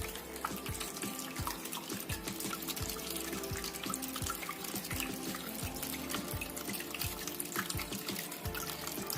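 Water splashing and trickling steadily from a small tabletop fountain fed by a mini submersible pump, under background music with a steady beat.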